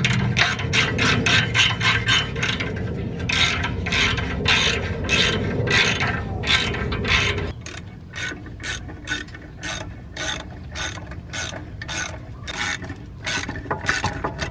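Hand ratchet wrench clicking in quick strokes while exhaust bolts are tightened: about three or four clicks a second at first, slowing to about two a second. A low steady rumble underneath stops about halfway through.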